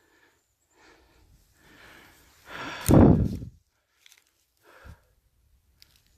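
A person breathing hard from exertion, with a series of puffs and one heavy exhale about three seconds in.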